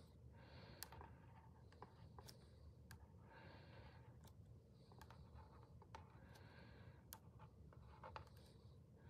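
Faint scratching of a felt-tip marker writing numbers on a paper sheet, in short irregular strokes with a few light ticks of the tip on the paper.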